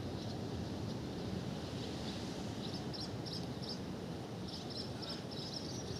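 Steady low rush of sea and wind with a bird chirping in quick runs of short high notes, one run about halfway through and another longer one near the end.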